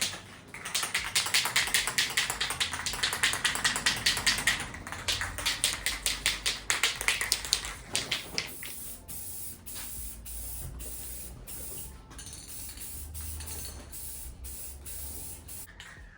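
Aerosol can of clear-coat lacquer: for the first several seconds a fast, even run of clicks as the can is shaken, then a softer spray hiss broken by short pauses.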